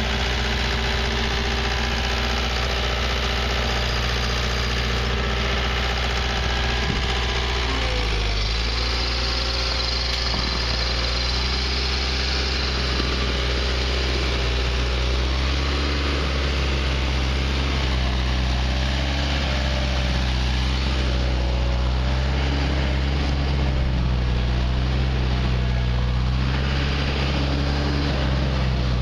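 Bandit stump grinder's engine running steadily, its pitch wavering slightly from about eight seconds in.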